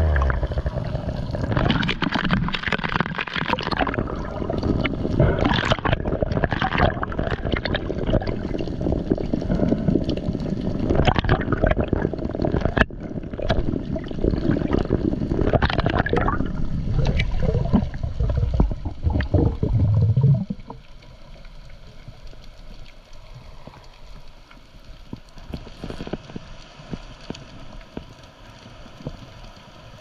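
Water sloshing and gurgling around an underwater camera held just below the sea surface: a loud, uneven rush with many splashy bursts. About twenty seconds in it drops suddenly to a much quieter underwater hiss with faint scattered clicks.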